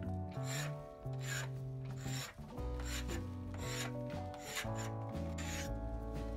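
Hand paint scraper rasping in short, irregular strokes as old antifouling paint is scraped off a sailing boat's hull, over background music with a steady bass line.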